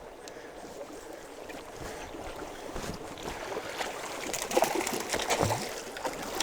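Running river water, with splashing that builds over the second half as a hooked trout thrashes at the surface during the fight.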